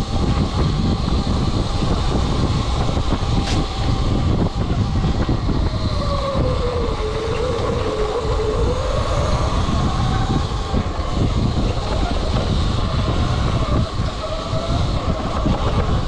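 Electric dirt bike on the move over a rough trail. The motor's whine falls in pitch for a few seconds in the middle, then climbs again as speed picks back up. Under the whine is a constant heavy rumble from tyres and wind.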